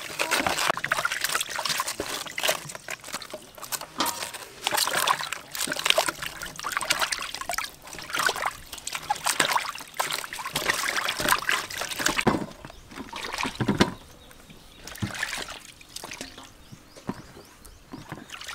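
Water splashing, sloshing and trickling in a large steel basin as hands wash a cabbage and tomatoes, rubbing and turning them in the water. About twelve seconds in it turns quieter, leaving scattered small drips and handling noises.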